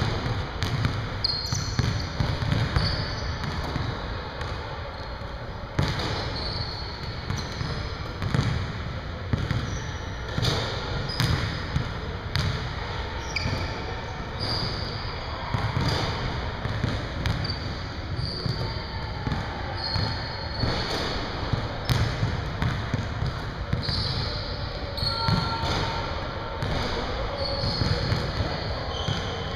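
Basketballs bouncing and thudding on a hardwood gym floor during a shooting workout, in irregular single impacts every second or two, with short high squeaks scattered throughout over a steady low hum of the hall.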